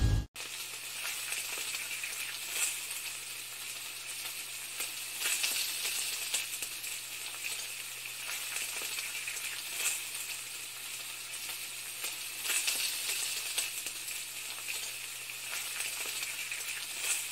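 Food sizzling in a hot frying pan: a steady crackling hiss that swells louder every few seconds, over a faint low hum.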